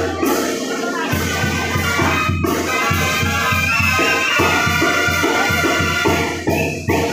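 Brass band playing a lively tune over a steady, regular beat, with a brief break near the end before the playing picks up again.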